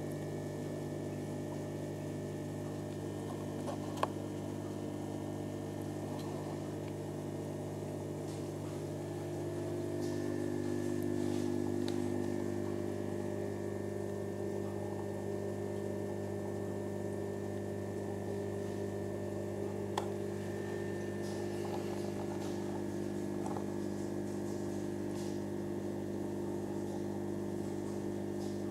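Steady electric hum from aquarium equipment, several level tones together that swell slightly about ten seconds in. Two sharp clicks stand out, one about four seconds in and one about twenty seconds in.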